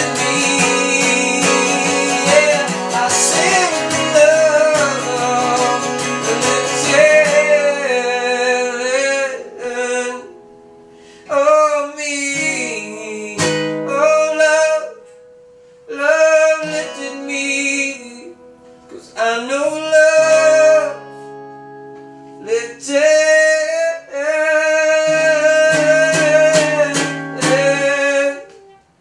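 Solo acoustic guitar strummed with singing. After about seven seconds the dense strumming thins out into separate long, wavering melodic phrases with short pauses between them.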